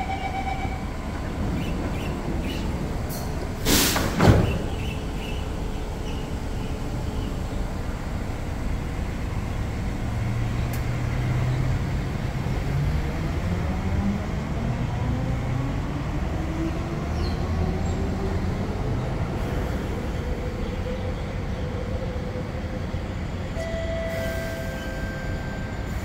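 Electric metro train pulling away: its traction motors whine, rising steadily in pitch over about ten seconds, over a steady rumble of the train. A brief, loud burst of noise comes about four seconds in.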